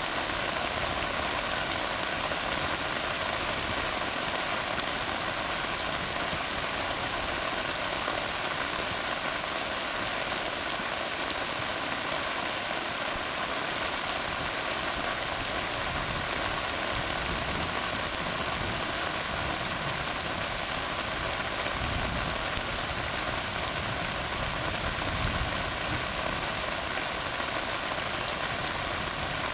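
Steady rain falling on a tar road, a dense, even hiss of drops with fine pattering on top. A low rumble swells briefly about two-thirds of the way through and again near the end.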